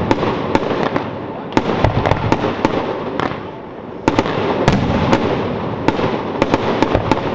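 Fireworks display going off: sharp bangs and dense crackling in quick volleys, with a short lull about three and a half seconds in before the bursts pick up again.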